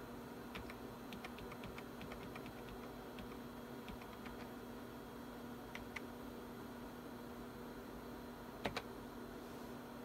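Computer keyboard keys being pressed: a quick run of light clicks for the first few seconds, two more around the middle, and two louder keystrokes near the end, over a steady electrical hum.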